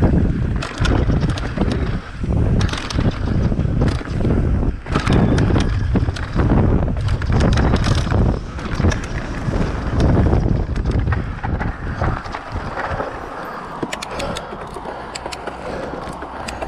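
Electric mountain bike riding down a dirt trail: heavy wind buffeting on the microphone over tyre noise, with frequent sharp rattles and clacks from the bike over bumps. The wind rumble eases after about twelve seconds.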